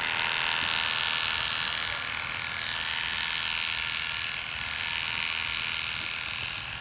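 Electric hair clippers running steadily, shaving a patient's scalp down before the transplant, with a continuous even buzz.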